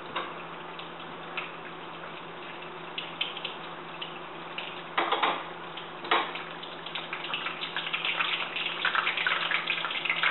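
Ravioli deep-frying in hot oil in a wok: a steady sizzle, with crackling pops that grow busier from about halfway through.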